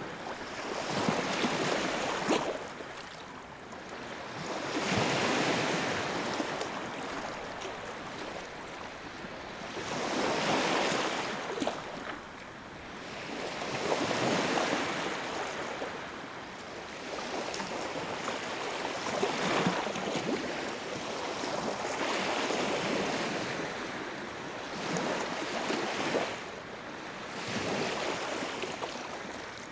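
Sea waves breaking in slow, repeating surges of surf, each swelling and washing away over about four to five seconds.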